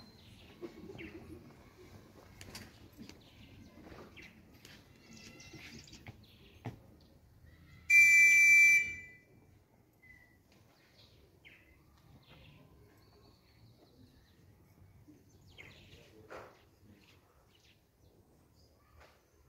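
A single loud, steady, high-pitched whistle blast lasting about a second, some eight seconds in. Around it are faint bird chirps and quiet outdoor background.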